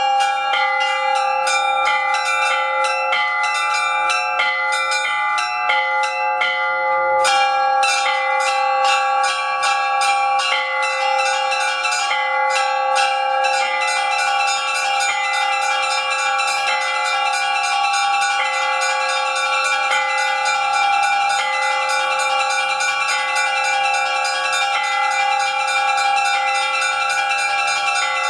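Russian Orthodox church bells rung by hand from a bundle of ropes in a continuous peal (zvon): rapid rhythmic strikes of the small chime bells over the sustained ringing of the larger bells, with a brief break in the rhythm about seven seconds in.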